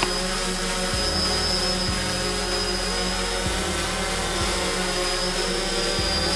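DJI Phantom 3 quadcopter hovering low over pavement, its four motors and propellers giving a steady whine with a thin high tone above it and small shifts as it holds position for landing.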